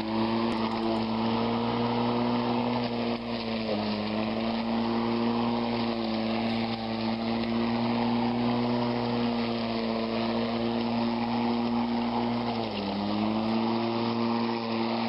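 Greenworks corded electric lawn mower running steadily while cutting weeds, an electric motor hum with the blade's rushing noise. The pitch sags briefly twice, about four seconds in and again near the end, then comes back up.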